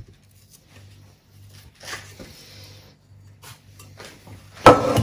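Sticky bread dough being scraped out of a stainless steel pot into a loaf tin: soft, quiet scraping and slopping, then a loud knock near the end as the pot and scraper are knocked together.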